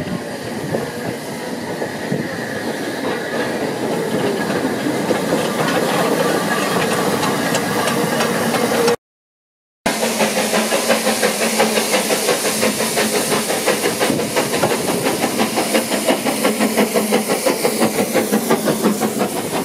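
Narrow-gauge steam locomotive at a station: a steady hiss of steam, then, after a break of about a second, a locomotive working close alongside the train with a fast, even beat.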